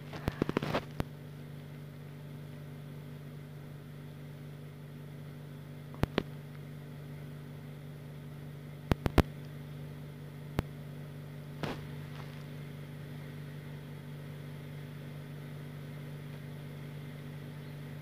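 Hampton Bay Callaway II ceiling fan running on its low speed, a steady low hum, with a few sharp clicks scattered through it.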